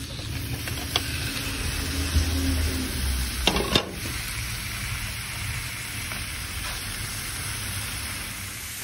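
Raw chicken koftas sizzling in a hot frying pan greased with sprayed oil as they are tipped in, with a few sharp knocks about a second in and again between three and four seconds.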